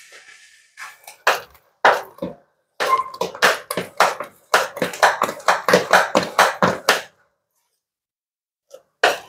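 A steel spoon stirring thick fermented dosa batter in a stainless steel bowl to mix in salt and oil, in quick strokes against the bowl, about three or four a second, that stop about two seconds before the end, with one more stroke just before the end.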